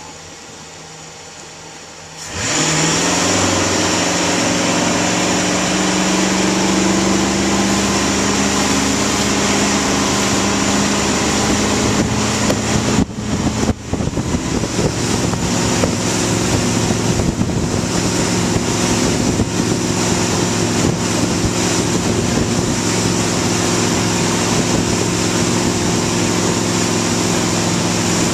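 Motorboat engine throttling up about two seconds in, its pitch rising, then running steadily at speed while towing a tube, over a steady rush of wind and churning wake; the level wavers briefly about halfway through.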